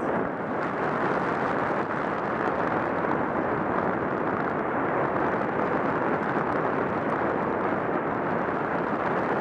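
Dull, steady rushing noise of a bike ride at speed on a snowy dirt road: tyres rolling over packed snow and frozen ruts, with air rushing past the camera.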